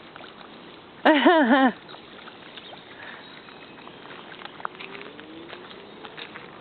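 A dog gives one short, loud, wavering whine-like vocalization about a second in, its pitch wobbling up and down for just over half a second; otherwise only faint background.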